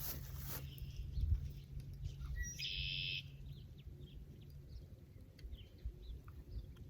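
Birds chirping in short, scattered calls, with one brighter call about three seconds in. Under them is a low rumble with a few thumps that dies away a little past halfway.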